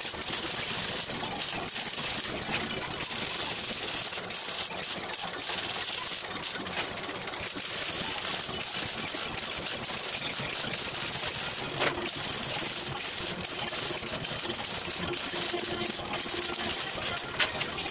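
MIG welder's arc crackling and hissing as it welds the sheet steel of a Ford Cortina Mk3 scuttle panel, a steady frying noise with irregular sharp pops through it.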